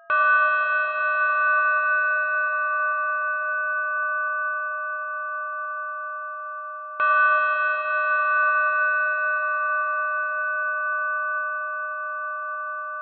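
Synthesized model of a small Russian zvon bell (zazvonny, 18 kg, cast in the 1990s), struck twice about seven seconds apart. Each strike rings on as a cluster of steady tones that slowly fades.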